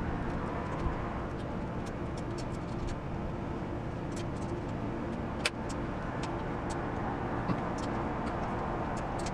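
Light metal clicks and ticks as a Knox Nut security skewer's nut is tightened on a bicycle's rear axle with its key and an Allen key, with one sharper click about halfway, over a steady background rumble.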